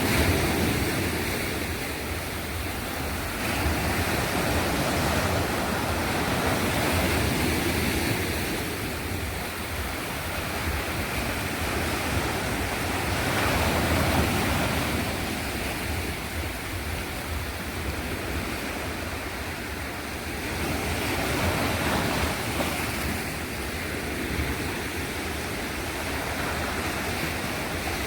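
Sea waves washing onto the shore, swelling and easing every few seconds.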